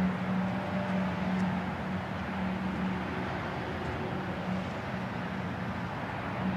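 A steady low hum over a constant wash of background noise, without a break.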